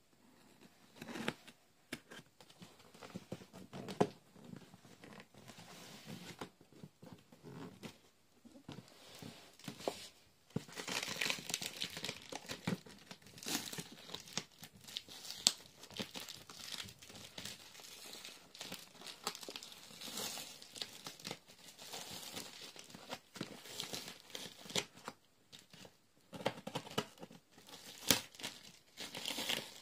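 Packing tape on a cardboard box being cut and scraped with scissors, then torn and peeled off, with the cardboard flaps crinkling. The sounds come in irregular scrapes and rips, with a few sharp snaps.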